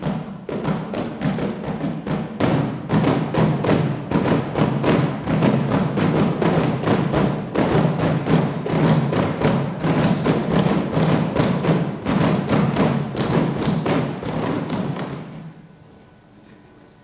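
Live ensemble music with sustained string tones and a quick, steady percussive beat. It stops about fifteen seconds in, leaving faint hall tone.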